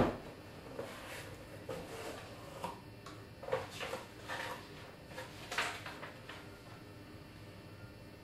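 A sharp knock at the start, followed by a few seconds of scattered lighter knocks and rustles that die away.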